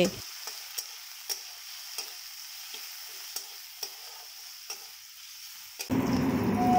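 Flat metal spatula stirring diced potatoes and onions frying in mustard oil in a kadhai: a steady sizzle with light scrapes and taps of the spatula against the pan about twice a second. Near the end the sizzle gives way abruptly to a louder, deeper noise.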